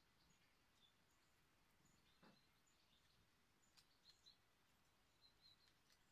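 Very faint garden ambience with scattered short, high bird chirps, a few bunched together a little after halfway. There is a brief downward-sliding sound about two seconds in.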